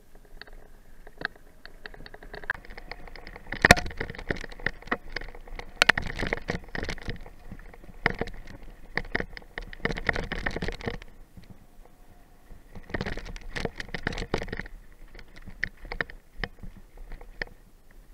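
Mountain bike rattling and clattering as it rides down a loose, rocky trail, picked up by a helmet-mounted camera: a rapid run of knocks and rattles, busiest in two stretches, with one sharp knock about four seconds in.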